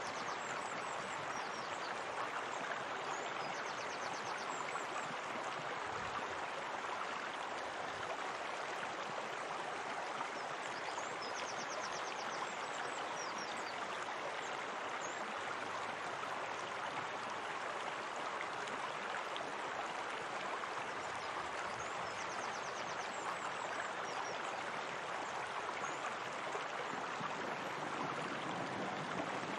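Steady running water, a continuous rush like a stream or small spring-fed waterfall. Faint, short, high chirping trills sound a few times over it.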